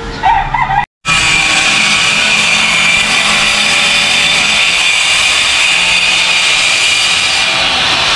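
Electric angle grinder running continuously under load on stainless steel, a steady high-pitched grinding whine over a harsh hiss. It cuts in after a brief dropout about a second in.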